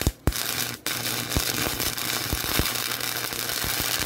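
Wire-feed welder arc crackling and spitting: a couple of short strikes, then a steady run of about three seconds that cuts off abruptly near the end.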